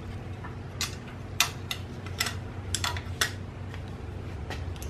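Light metal clinks and clatter as steel thrust-washer plates and brackets are handled and lifted off the camshaft sprockets of a BMW M50 engine: about seven sharp, irregular clinks over a steady low hum.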